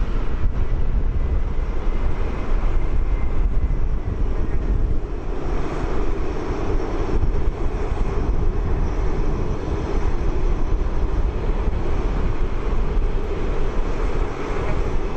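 Boeing 787-9 airliner's Rolls-Royce Trent 1000 turbofans running at taxi power as it rolls slowly past: a steady rushing jet noise that grows louder about five seconds in as the engine comes closer.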